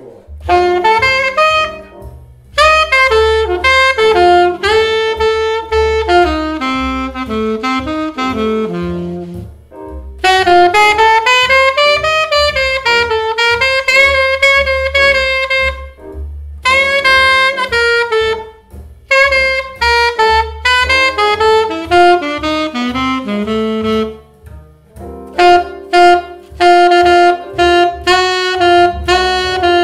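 Saxophone playing a solo jazz improvisation in quick, winding phrases separated by short breaths, demonstrating chord tones combined with diatonic and chromatic non-chord tones.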